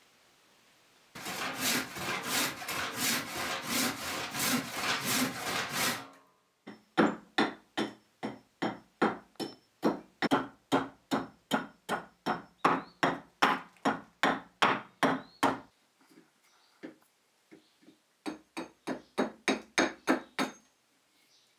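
A hand tool worked back and forth on wood in rhythmic scraping strokes. A dense run of about five seconds is followed by separate even strokes, about two and a half a second, then after a pause a short, quicker run near the end.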